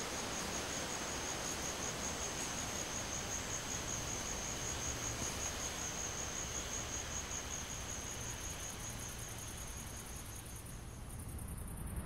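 Night insects in tropical rainforest: one high-pitched insect call pulsing steadily over an even hiss of other insects. The high call stops about a second before the end.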